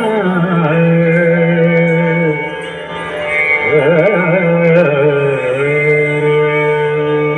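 Recorded Marathi devotional song played over a stage loudspeaker: a wordless melodic introduction of long held notes, with ornamented, wavering runs twice, over a steady accompaniment.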